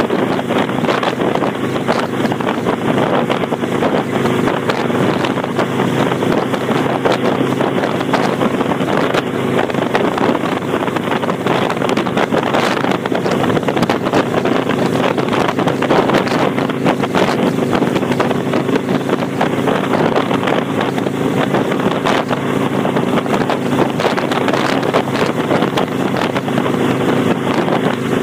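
Kawasaki Vulcan 800's V-twin engine running steadily through Vance & Hines Straight Shots pipes with the baffle plugs removed, with wind noise on the microphone.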